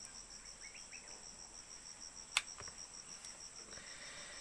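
Insects chirping in a steady high-pitched pulsing trill, about five pulses a second, over a continuous high whine. A single sharp click sounds a little past halfway.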